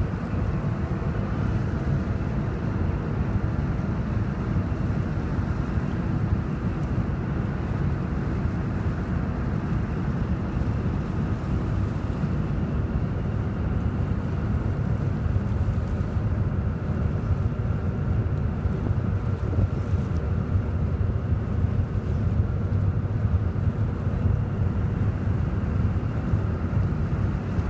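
Steady low rumble of wind buffeting the microphone over open water, with a faint, even engine hum underneath; no horn sounds.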